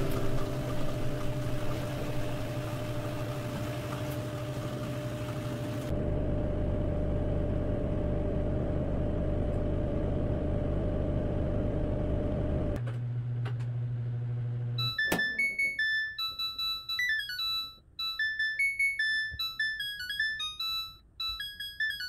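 Samsung Grande AI front-load washing machine in its spin cycle: a steady whirring rush with a constant motor whine and low hum. About 13 seconds in the spin gives way to a low hum, and after a click near 15 seconds the washer plays its end-of-cycle melody, a tune of clear electronic notes signalling that the wash is finished.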